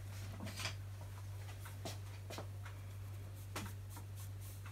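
About four soft clicks and taps from a knife and wooden spoon being handled over a metal baking tray while the knife scores soft bread dough, over a steady low hum.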